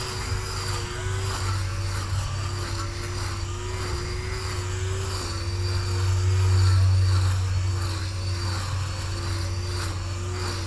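Cordless electric grass trimmer (a battery-powered Makita replica) running with a steady motor whine. Its pitch dips briefly every second or so as the head bites into the grass, and it grows a little louder around the middle.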